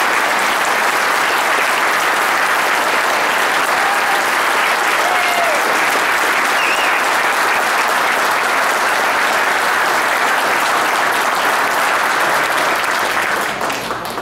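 Audience applauding steadily, with a few faint voices calling out over it; the applause dies away near the end.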